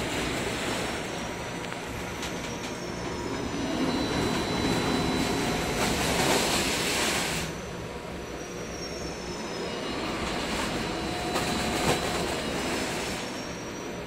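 Industrial tunnel washer's loading chute and inlet running, a loud steady machine rush with thin high metallic squeals that come and go. It swells about four seconds in and drops back a few seconds later.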